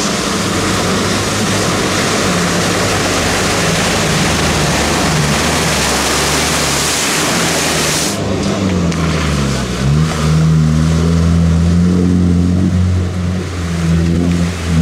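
Off-road SUV engine revving as it ploughs through a muddy pond, with water splashing and spraying loudly over it. About eight seconds in, the splashing drops away. The engine note dips and climbs back, then holds steady at high revs.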